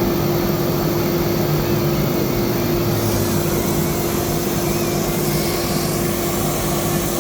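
Automatic tool-changing spindle of a CNC router running at speed with one steady tone, over the steady rush of a dust extraction vacuum.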